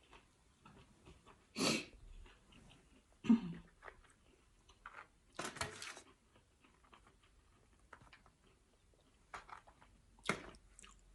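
Close-miked chewing of crispy fried food, with a few short, louder crunches or bites every couple of seconds.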